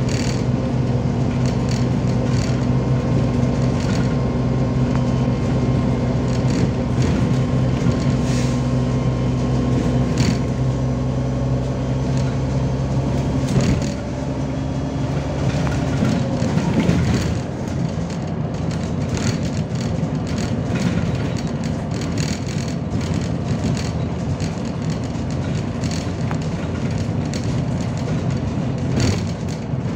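MAZ-203 city bus under way, heard from inside the passenger cabin: a steady engine drone with frequent clicks and rattles. About halfway through, the engine note drops and shifts to a lower, rougher sound.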